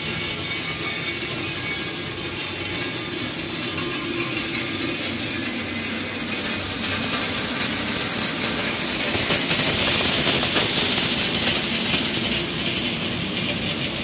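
Asphalt drum mix plant running: steady mechanical noise of its conveyors and rotating drum. It grows louder and hissier from about seven seconds in, while aggregate pours off a conveyor.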